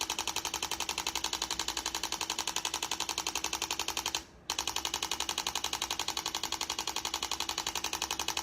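Computer-controlled chiropractic adjusting instrument rapidly tapping the top neck vertebra (C1), about eleven mechanical impulses a second over a steady hum. It pauses briefly about four seconds in. The device keeps tapping until it detects that the locked-up joint has loosened.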